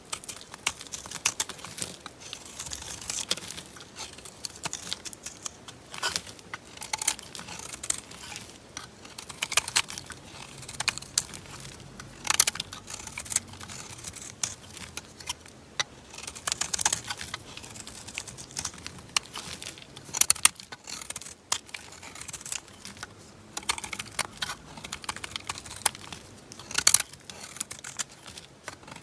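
Knife cutting through bar soap, with irregular crisp crackling and scraping and many sharp clicks.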